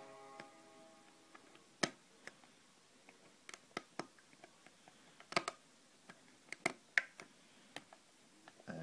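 Lock pick clicking and ticking on the pins inside a five-pin ISEO euro cylinder as it is picked: irregular sharp clicks, a few louder than the rest.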